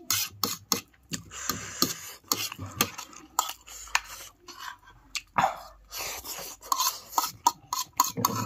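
Close-miked eating sounds: a mouthful of chow noodles being chewed, with a utensil scraping and clicking against the plate, giving many sharp little clicks and scrapes throughout.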